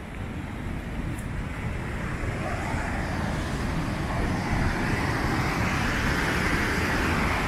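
Waterfall's rushing water, a steady roar that grows louder over the first few seconds and then holds.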